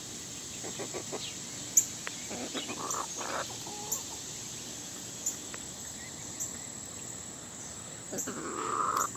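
Backyard chickens clucking, with short calls scattered through and a louder run of them near the end.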